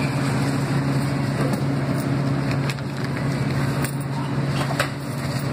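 Steady low machine hum of shop equipment behind a sandwich counter, with a few light clicks and taps.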